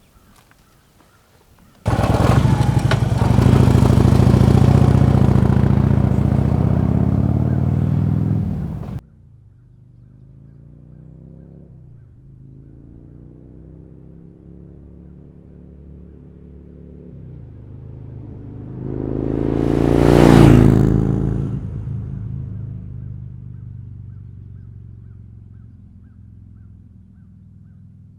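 Harley-Davidson touring bike's V-twin through Vance & Hines Monster Oval slip-on mufflers. A loud burst starts suddenly and cuts off abruptly, then the engine pulls up through the gears with rising pitch. It passes close by about two-thirds through and fades away.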